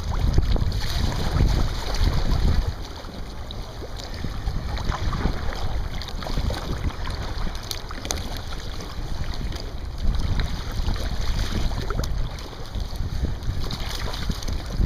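Wind buffeting the microphone in gusts, over water lapping around a kayak.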